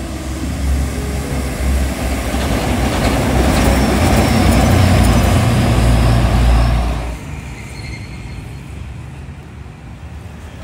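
Heavy-vehicle street traffic passing: a low engine rumble with road noise that builds to its loudest around five seconds in, then drops away suddenly about seven seconds in to fainter street noise.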